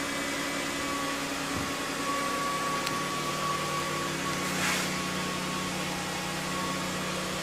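Steady machine hum with a few constant tones, unchanging throughout.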